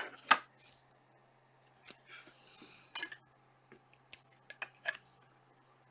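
Hard plastic card holders and trading cards being handled on a table: a sharp click just after the start, soft rustling about two seconds in, another click at about three seconds, then a run of small taps and clicks.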